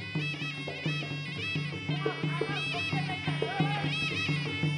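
Traditional Kun Khmer ringside music: a sralai reed oboe plays a wavering, nasal melody over a steady drum beat.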